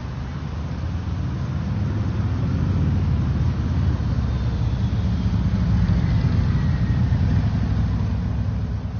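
Low, steady engine rumble of a passing self-unloading lake freighter, growing louder over the first few seconds as the ship's stern approaches.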